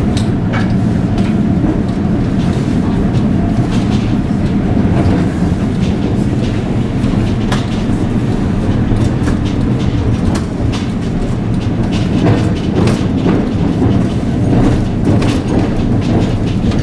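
Historic series 2800 Turin tram running along street track, heard from inside the car: a steady low rumble of the wheels and running gear, with frequent irregular clicks and knocks as the wheels pass over rail joints and points.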